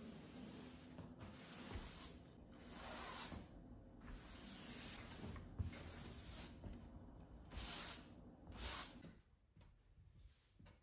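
Flat mop swept across a wood-look floor: a run of soft swishing strokes, each about a second long, which stop about nine seconds in.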